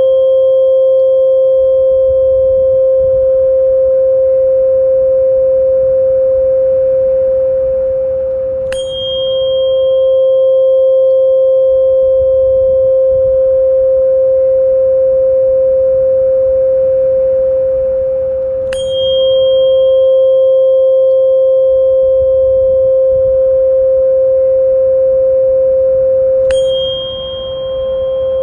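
Steady mid-pitched sustained tone of a tinnitus-relief sound-therapy track, with fainter higher tones above it. A small high chime is struck three times, roughly every nine seconds, each strike leaving a ringing high note.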